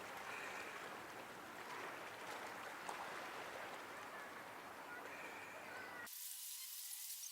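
Faint, steady open-air ambience at the shore of calm water: a soft, even hiss of gently lapping water. About six seconds in it cuts abruptly to a thinner, high hiss.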